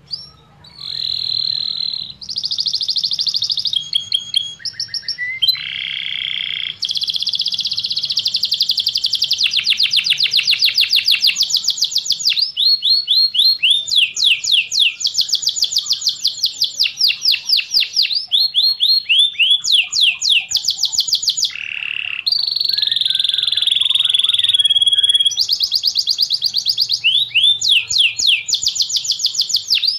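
Domestic canary singing a long, unbroken song of rapid trills and rolls, the fast repeated notes changing from phrase to phrase, starting about half a second in.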